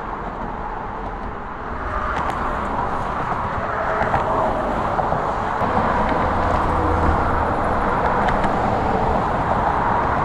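Steady road traffic, tyres and engines, growing louder about two seconds in, with a low engine hum from a passing vehicle partway through.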